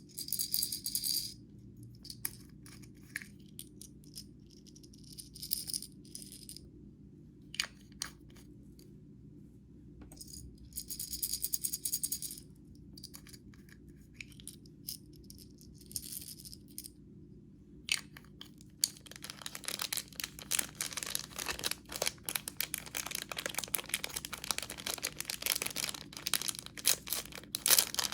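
Crackly clicking and rattling as slime and makeup ingredients are worked by hand, in short separate bursts at first. It becomes a dense, continuous crackle about two-thirds of the way through.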